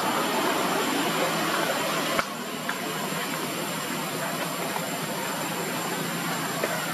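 Steady hiss of outdoor background noise that drops a little in level about two seconds in, with a few faint ticks.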